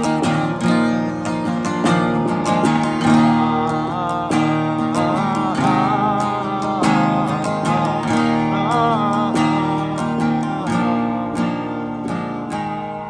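Carbon-fibre acoustic guitar strummed in steady chords, with a man's singing voice over it in the middle stretch.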